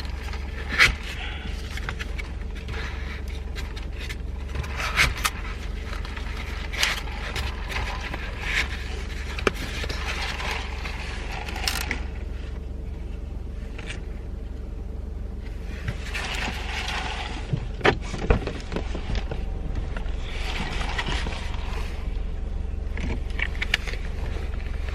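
Handling noises from a food delivery being carried and set down: scattered scrapes and rustles with a few sharp clicks and knocks, two of them close together about 18 seconds in, over a steady low hum.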